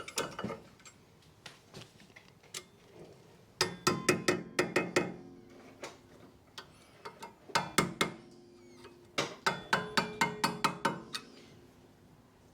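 Small hammer tapping a metal anti-rattle shim down into a brake caliper carrier: quick light metallic taps, about five a second, each ringing briefly, in three bursts.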